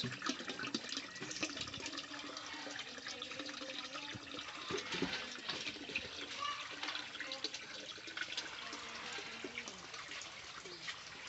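Water pouring steadily from the open end of a bamboo pipe into a plastic tub of water, splashing continuously.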